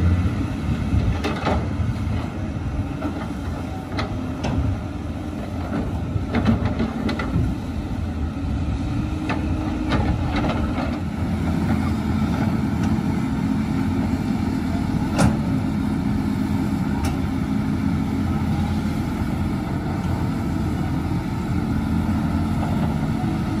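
Caterpillar 320C hydraulic excavators and a crawler bulldozer working, their diesel engines making a steady low rumble. Scattered sharp knocks and clanks of the machines at work are heard over it.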